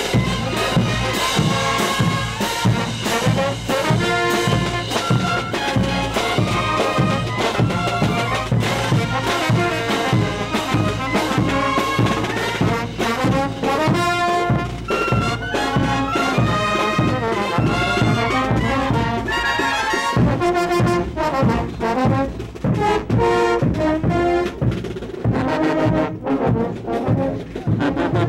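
Marching brass band playing a lively dance tune: trumpets, trombones and large low-brass horns over a steady beat of bass drum, snare and hand cymbals.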